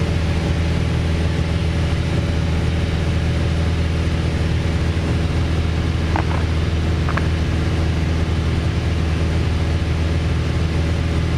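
Piper PA-28-161 Warrior's four-cylinder Lycoming O-320 engine and propeller droning steadily in cruise, heard from inside the cabin. Two brief faint blips come about six and seven seconds in.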